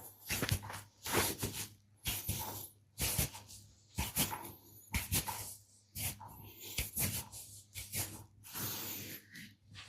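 Hands working over bare skin in a deep tissue massage: quick rubbing and slapping strokes about once a second, with occasional sharp clicks.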